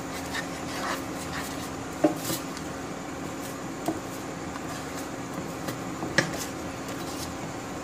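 Wooden spatula stirring and scraping a thick flour-and-milk sauce in a nonstick frying pan, with a few sharp knocks of the spatula on the pan, the loudest about two seconds in and about six seconds in. A steady hum runs underneath.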